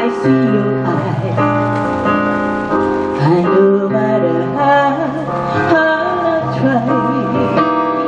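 A woman singing a slow song into a microphone, accompanied by an electronic keyboard, both amplified through PA speakers.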